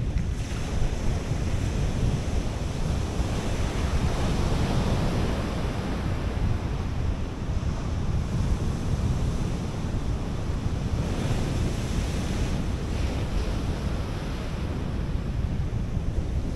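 North Sea surf breaking on a sandy beach, a continuous wash that swells and eases, louder about four seconds in and again around eleven seconds. Wind buffets the microphone throughout with a low rumble.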